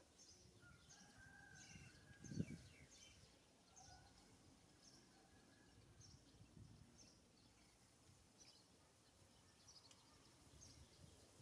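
Near silence, with a bird's short high chirps repeating about once or twice a second in the background, and a single soft thump about two seconds in.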